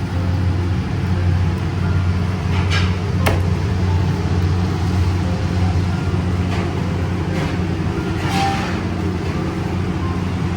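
A steady low machine hum, with a few separate sharp knocks of a knife cutting frozen chicken into pieces on a board.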